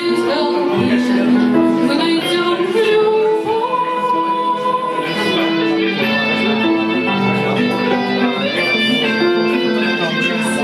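Band music with guitar, and possibly a voice singing over it.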